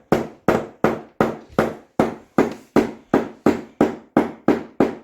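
A hammer driving small nails into a flat-pack cabinet's board: steady, even blows at about three a second, each with a short ringing tail.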